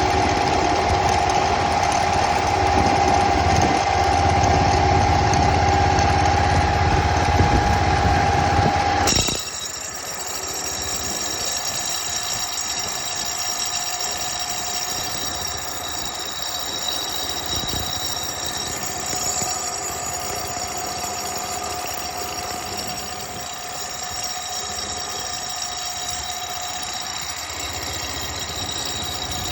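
Simplicity Landlord 7012 garden tractor running with a steady high whine, the PTO noise problem being shown. About nine seconds in the sound drops suddenly to a quieter, thinner running note with fainter whines.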